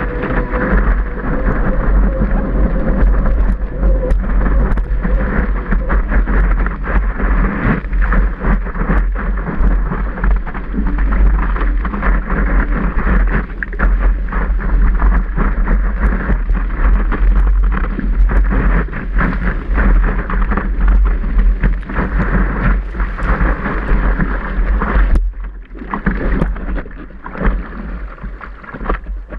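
Whitewater and spray rushing over a surfboard during a wave ride, with wind buffeting the board-mounted camera's microphone in a heavy low rumble. The rush dies down about 25 seconds in as the board slows, leaving lighter lapping water.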